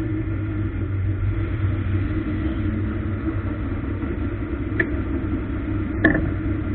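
A ministock race car's four-cylinder engine running at a steady pitch, heard from inside the car, with two short sharp clicks, about five and six seconds in.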